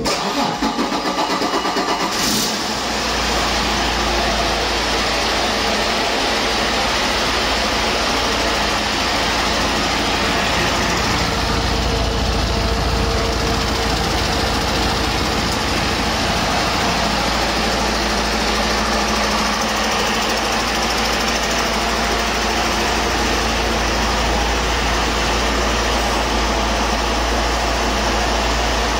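Detroit Diesel DD13 inline-six diesel engine cranking with an uneven pulse, catching about two seconds in, then idling steadily with a deep, even rumble on its test stand.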